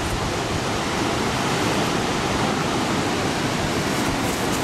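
Steady rushing of the Zambezi's white water below Victoria Falls, an even noise with no break.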